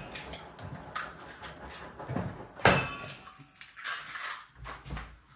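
Eggs being cracked against the rim of a stainless steel mixing bowl: several sharp taps, the loudest about two and a half seconds in, followed by a short rustle near the end as the shell is pulled apart.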